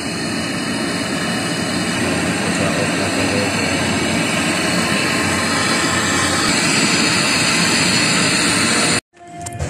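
Handheld gas torch burning with a steady hiss as it heats a copper refrigerant-line joint at a refrigerator compressor for brazing. The sound cuts off abruptly near the end.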